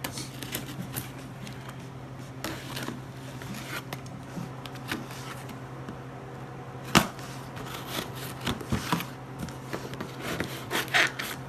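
A cardboard package being cut open and handled: irregular scraping, crinkling and clicking of the box and packing material, with one sharp knock about seven seconds in.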